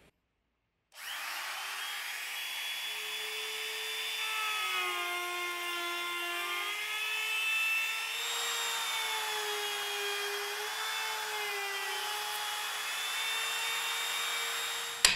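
Compact router running and cutting pine along a plywood template, its high motor whine starting about a second in and dipping in pitch as the bit takes load, then recovering. A sharp click near the end.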